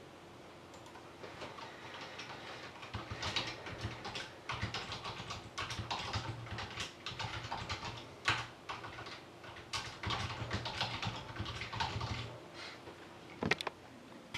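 Typing on a computer keyboard: a run of quick key clicks with short pauses, stopping about a second before a couple of sharper clicks near the end.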